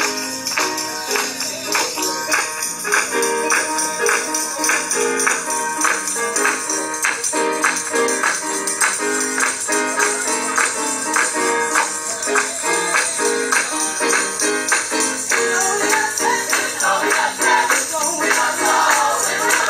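Gospel choir music with singing over a steady clapped and tambourine beat. Near the end a voice rises and sings out above the rest.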